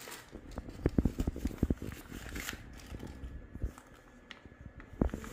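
Plastic bag crinkling and a quick run of small clicks and taps about a second in, as a Mitutoyo Hardmatic hardness gauge is pulled out of its bag and handled; one sharper knock comes near the end.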